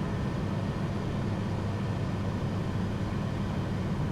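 Steady in-flight cockpit noise of a Pilatus PC-24 business jet: a constant low rush of airflow and engine hum, with a faint steady whine above it.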